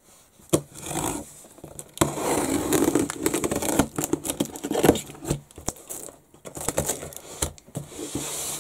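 Cardboard shipping box being opened by hand: packing tape tearing and cardboard flaps rustling and scraping, with scattered clicks and knocks.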